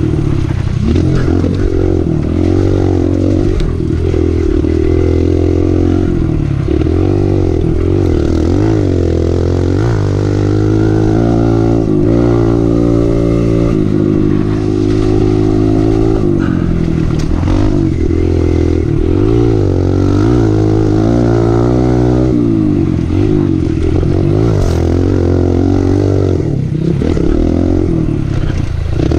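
Kawasaki KLX 140L dirt bike's single-cylinder four-stroke engine under hard riding, its pitch rising and falling again and again as the throttle is worked, with a few brief drops in revs.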